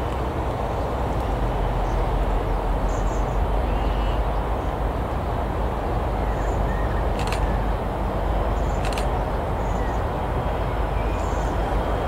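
Steady low rumble and hiss of outdoor background noise, with a small bird chirping a few times.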